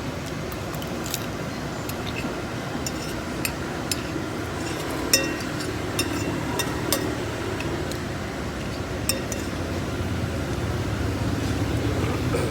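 Metal cutlery clinking irregularly against a plate during a meal of fried noodles and rice, about a dozen light clinks with the loudest about five seconds in, over a steady low rumble of traffic.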